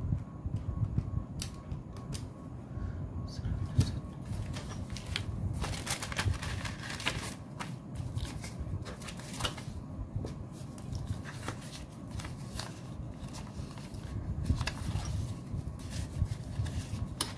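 Banknotes being counted and sorted by hand, rustling and crinkling with many short, sharp flicks and snaps of the notes.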